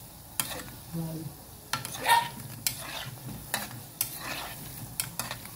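Hot oil sizzling around bolinhos de chuva (fried dough balls) frying in an aluminium pot, with a metal spoon clinking and scraping against the pot as the balls are turned. Several sharp clinks; the loudest comes about two seconds in.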